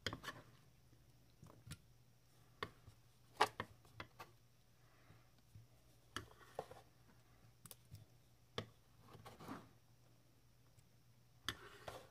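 Scattered light taps and knocks of a hand and a santoku knife on a wet wooden cutting board as diced tomato is pushed together, with a short scrape of the blade across the board near the end.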